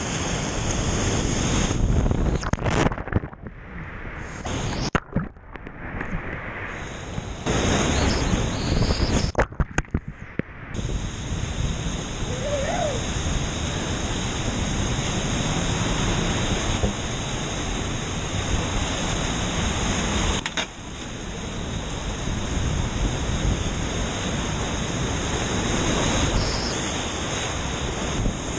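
Whitewater rapids rushing and splashing around a kayak, heard close up through a GoPro camera. In the first ten seconds the sound turns dull and cuts in and out several times, then settles into a steady rush.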